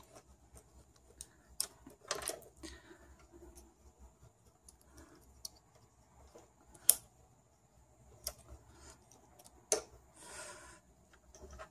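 Faint, scattered clicks and rustles of wires and insulated spade connectors being handled and worked off thermostat terminals, with a few sharper clicks spread out and a short rustle near the end.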